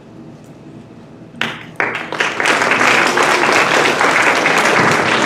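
Quiet room tone, then an audience starts applauding about a second and a half in, the clapping quickly building and holding steady.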